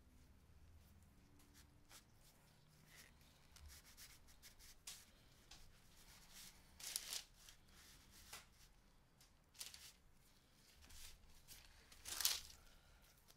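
Faint rustling and rubbing of gloved hands, kitchen twine and a paper sheet as twine is tied around a raw steak, with two louder paper crinkles, one about halfway through and one near the end.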